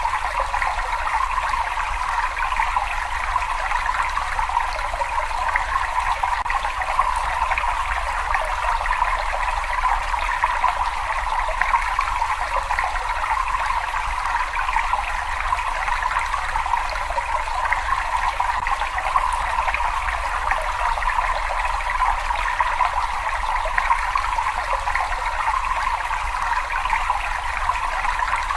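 Water running and trickling in a cave, a steady, unchanging flow. A low rumble sits underneath it.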